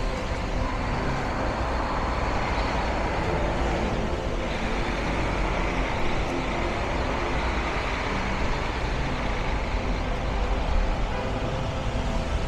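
City avenue traffic on a wet street: cars, trucks and buses passing in a steady wash of engine and tyre noise, with a few vehicles swelling up and fading as they go by.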